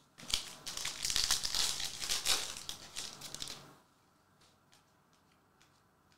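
Foil wrapper of an Upper Deck Series 2 hockey card pack crinkling as it is torn open, a dense crackle lasting about three and a half seconds. A few faint ticks follow as the cards are handled.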